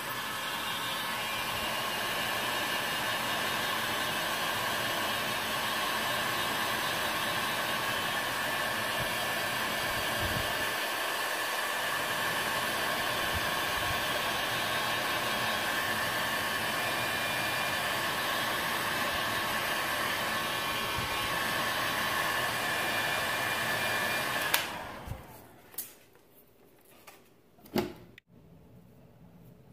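Handheld electric heat gun running steadily, its fan blowing hot air, then switched off suddenly about 25 seconds in. Faint handling noise follows, with a sharp knock near the end.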